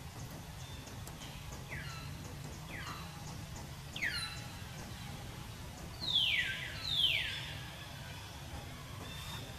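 Five short, high animal calls, each sliding steeply down in pitch, the last two the loudest, over a steady low hum.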